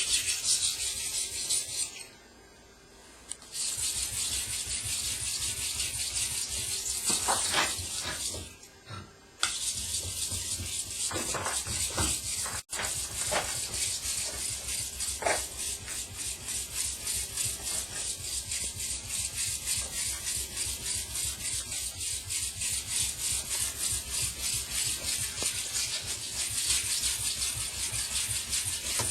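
Steel knife blade being ground by hand on a 1000-grit Japanese water stone: a steady run of quick back-and-forth scraping strokes to grind the chips out of the edge, broken by two short pauses near the start and a few light clicks.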